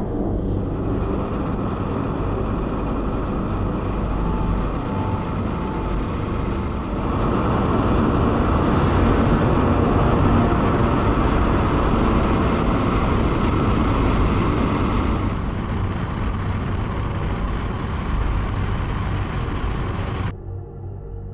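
Steady running noise of a vehicle in motion, changing abruptly about seven and fifteen seconds in, and cutting off shortly before the end.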